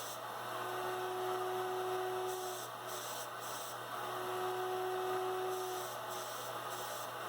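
Shop-built KRMx02 CNC router running, a steady hum and hiss with a mid-pitched motor tone that comes on for about two seconds, drops out, and comes back about a second later.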